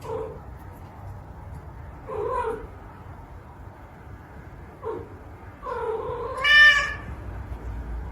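A cat meowing four times, with pauses between the calls; the last call is the longest and loudest.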